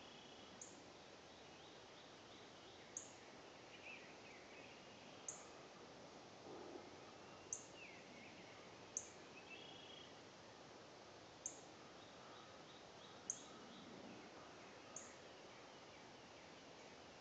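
Near silence in woodland, with faint distant bird calls and a short, sharp, high tick about every two seconds.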